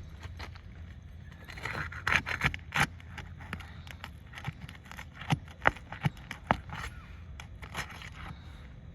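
Scraping with a series of sharp clicks and taps, from hand work on asphalt roof shingles during a shingle repair; the loudest snaps come in two clusters, around two seconds in and again past the middle.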